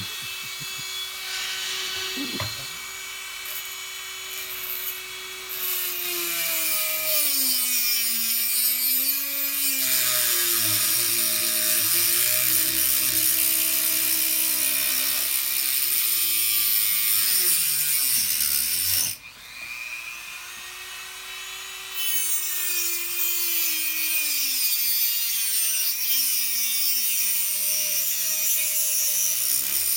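Dremel rotary tool running and grinding, a high motor whine that sags in pitch as it bites under load and climbs again as it eases off. It winds down sharply about nineteen seconds in, then spins back up and keeps grinding.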